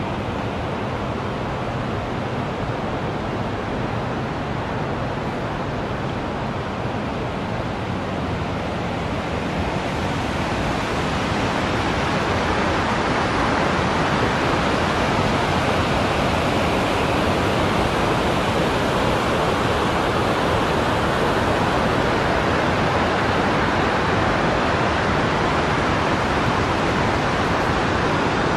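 Steady rushing of a white-water mountain river, growing somewhat louder about twelve seconds in and then holding.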